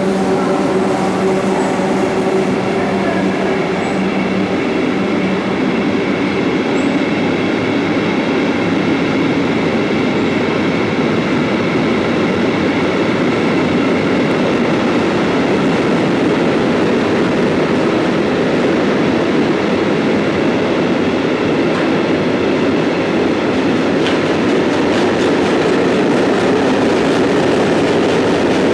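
Freight train running through a station at speed. The locomotive goes by at the start with a steady hum, followed by a long, even run of wagons loaded with steel coils.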